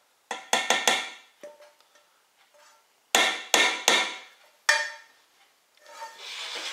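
A skillet and spatula knocking against the rim of a stainless steel cooking pot as buckwheat kasha is scraped out into it. Sharp metallic clanks with a short ring come as a quick cluster in the first second and four more about three to five seconds in, then a softer scraping sound near the end.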